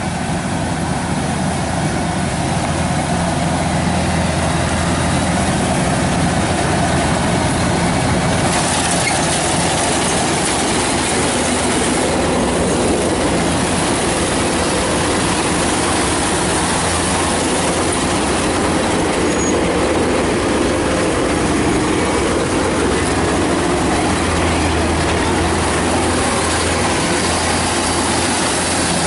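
Kubota DC-105X combine harvester running steadily and loudly while harvesting rice, a continuous mechanical din with a low hum. The sound turns brighter and hissier about eight seconds in.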